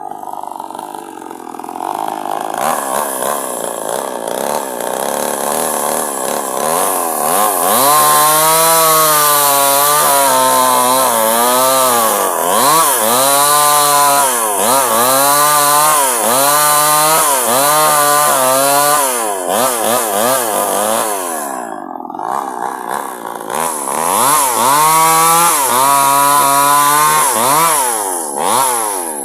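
Two-stroke chainsaw ripping a log lengthwise, its engine pitch dipping and recovering about once a second as the chain is rocked through the cut. It eases off for a couple of seconds about two-thirds of the way through, then cuts again.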